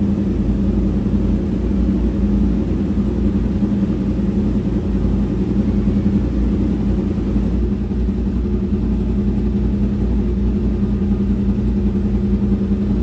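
Yamaha R1 and MT-10 crossplane inline-four engines with SC Project aftermarket exhausts, idling steadily with a deep, even rumble.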